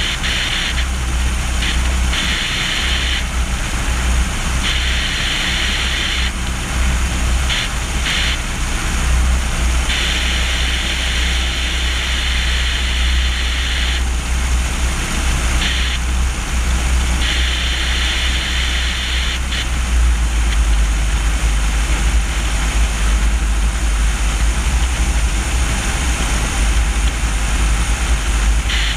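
Cessna 150E in flight, heard from a camera strapped to its main landing gear: the engine and propeller drone under heavy wind rush on the microphone. A higher hiss switches on and off for stretches of a second to a few seconds, and the low rumble gets heavier about two-thirds of the way through.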